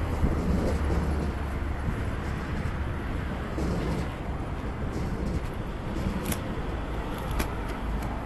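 Steady road traffic noise, a low rumble over an even hiss, with a few short sharp clicks in the second half.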